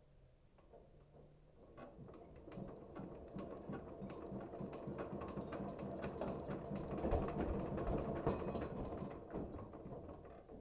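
Rapid, irregular mechanical clicking and scraping, building up about two seconds in and dying away near the end.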